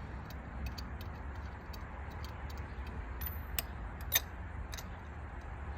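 Light metallic clicks and ticks from hand tools working a spark plug into the engine's cylinder head, coming irregularly, with one sharper click about four seconds in, over a low steady hum.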